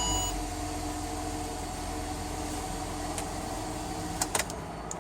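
Ford Territory engine idling steadily just after starting on a newly fitted starter motor, with a few light clicks about three and four seconds in. The no-crank fault, put down to a failed starter solenoid, is cured.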